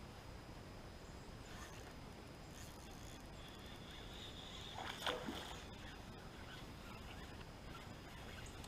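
Quiet open-air ambience on the water, with one short falling squeak about five seconds in.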